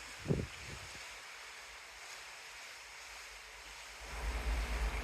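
Steady hiss of the sea and waves. A brief low thump comes just after the start, and wind buffets the microphone from about four seconds in.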